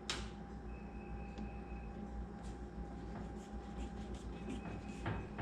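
Faint clicks and light handling noises as screws are put back in to hold a microwave's blower fan in place, over a steady low hum.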